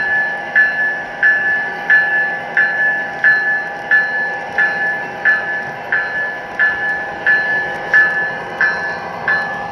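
Sound system of an O scale Norfolk Southern SD60E model locomotive ringing its bell steadily, about three strikes every two seconds, over a steady hum.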